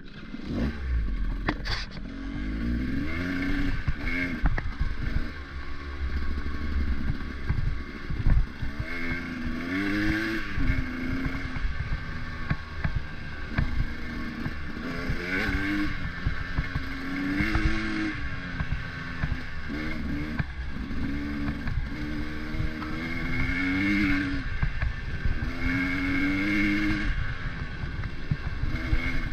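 A vehicle engine on the move, its pitch climbing and dropping back over and over as it speeds up and eases off, over steady wind and road noise.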